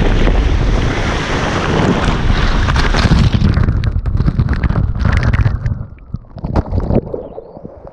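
Rushing water and wind buffeting a waterproof action camera's microphone on a water-slide ride: a loud steady rush that turns muffled about six seconds in, with scattered splashes and knocks.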